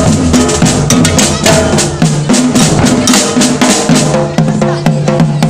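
A street percussion band playing a fast, steady beat: large marching bass drums struck with mallets, with smaller drums played with sticks over them.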